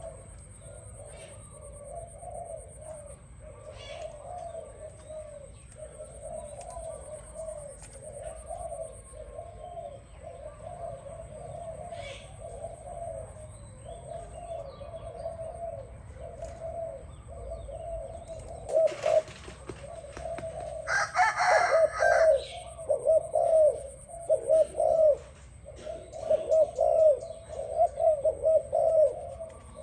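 Doves cooing almost without pause, low soft phrases repeated one after another. About 19 and 21 seconds in there is a brief loud noisy burst, and the cooing is louder from then on.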